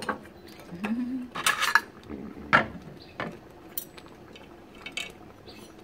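Metal spoons and a fork clinking and scraping against ceramic bowls and a steel hot pot as food is served and eaten: scattered irregular clinks, the loudest about one and a half and two and a half seconds in.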